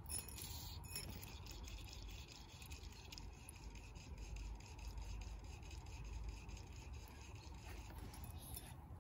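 Faint rubbing and scratching of fly line being drawn in by hand, over a low steady rumble.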